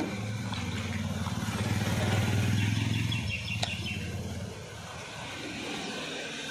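A motor vehicle's engine hum that swells in the middle and fades away after about four and a half seconds, with a couple of light clicks from a cardboard parts box being opened by hand.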